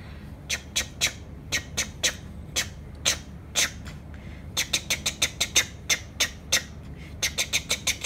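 Oil pastel rubbed on paper in short, quick strokes while colouring in yellow, each stroke a brief scratchy sound, about two or three a second, coming quicker in runs around the middle and near the end.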